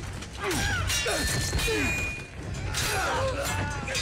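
TV sword-fight sound effects: blows and weapon clashes, with men's short grunts and cries.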